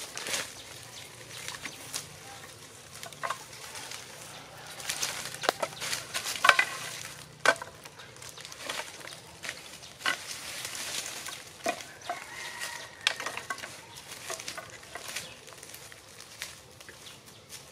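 Dry sticks and branches cracking and clattering as they are gathered into a bundle, with dry leaves rustling and crunching underfoot. The sharpest cracks come in a cluster about midway.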